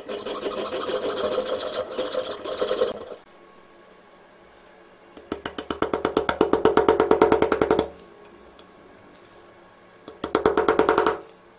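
Hacksaw and then a small file cutting a slot into a short brass tube held in a vise, in three bouts of quick rasping strokes: a long one at the start, another in the middle and a short one near the end.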